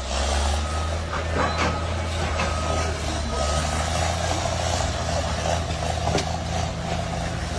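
Excavator's diesel engine running steadily while a high warning beep sounds on and off, with a few sharp knocks as the machine demolishes a house.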